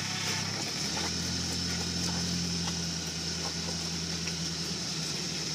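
Rock-crawling buggy's engine running steadily at low revs while the rig works its way up a rock ledge.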